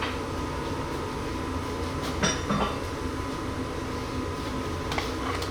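Steady low room hum with a few faint clinks of metal hand tools being picked up and handled, about two seconds in and again near the end.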